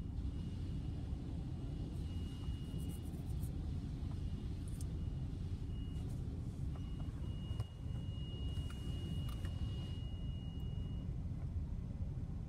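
Steady low rumble of an SUV heard from inside its closed cabin as it moves out of a car wash bay, with a faint steady high-pitched tone that drops out a few times and a few light ticks.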